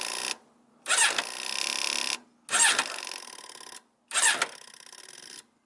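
Yamaha Diversion's four-cylinder engine being turned over by its electric starter in three short blips, each just over a second, without catching. The starter is blipped to run the fuel pump and draw fuel through a bone-dry fuel filter on a bike that won't start.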